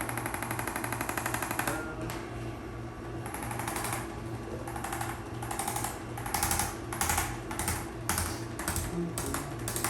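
Rapid mechanical tapping from a handheld electric percussion device pulsing against the body: one continuous run of about two seconds, then a series of shorter bursts, coming closer together toward the end.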